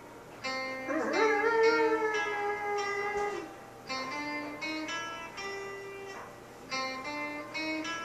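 Acoustic guitar being picked, a run of single plucked notes. About a second in, one long note bends up in pitch and rings for a couple of seconds.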